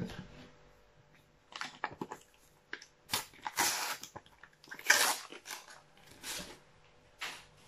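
A Panini sticker packet being handled and torn open: a string of short crinkling, tearing rustles of the wrapper, the loudest about five seconds in, among softer shuffling of the stickers.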